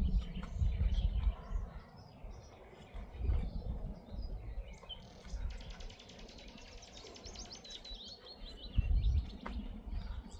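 Birds chirping and singing, with a fast trill from about five to eight seconds in. Low gusts of wind rumble on the microphone.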